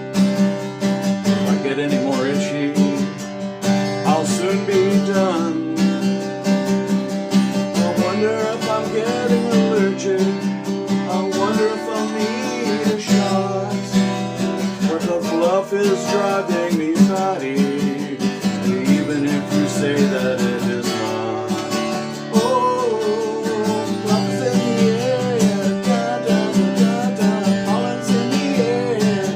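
Music: an instrumental passage of a pop song, a wavering melody line over a steady backing with no lyrics.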